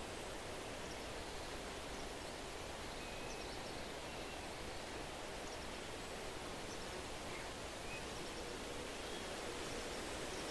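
Steady rustling of wind through tree leaves, with a few faint, short bird chirps scattered through it.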